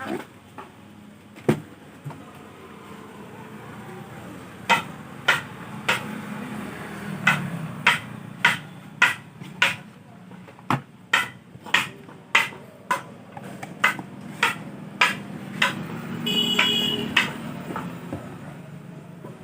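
A series of sharp clicks or taps, about two a second, over a low hum, with a brief high-pitched tone near the end.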